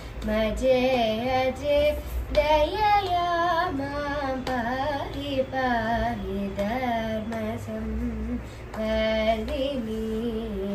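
A girl singing a Carnatic-style song, her voice sliding and turning between notes in phrases with short breaths between them.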